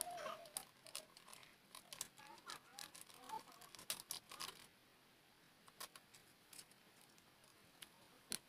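Faint clicking and crinkling as a small packet is handled and worked open by hand, thick over the first few seconds and then only a few scattered clicks, with one sharper click near the end.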